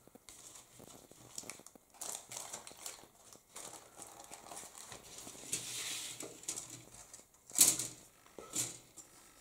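Plastic model-kit parts being handled: a clear plastic bag crinkling and plastic sprues clicking against each other and the table, with one louder knock toward the end.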